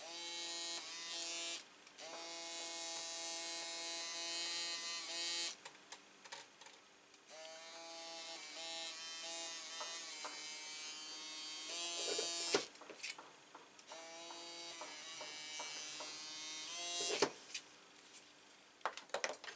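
Small handheld electric motor tool running in several bursts of a few seconds each, a steady buzzing whine, with sharp clicks between bursts and a few small taps near the end.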